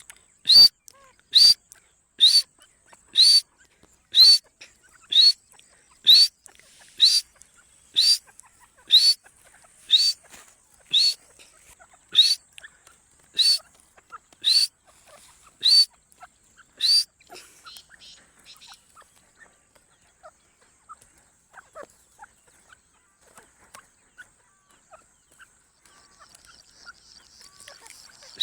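Teetar (francolin) calling: a run of about seventeen short, sharp, high calls, roughly one a second, that stops about two-thirds of the way through. Only faint clicks follow, and near the end there is a faint rapid trill.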